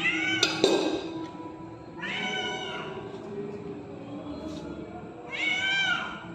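Ginger cat meowing three times, loud, drawn-out calls a couple of seconds apart, typical of a hungry cat demanding food.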